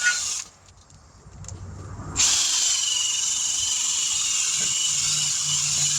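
A power tool running with a steady high hiss and whine. It cuts off about half a second in, then starts again about two seconds in and runs on.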